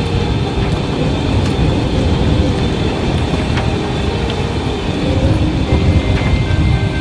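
Strong wind of about 30 knots buffeting the microphone on an open sailboat cockpit: a dense, rumbling rush, heaviest in the low end and gusting unevenly.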